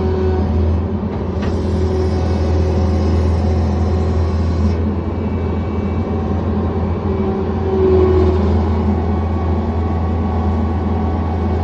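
John Deere 317 skid steer's diesel engine running steadily, a little louder about eight seconds in. A hiss joins it from about a second and a half to nearly five seconds in.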